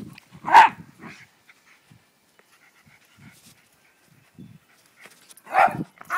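Small dog barking while it plays: one sharp bark about half a second in and another near the end, with faint snuffling and scuffling between.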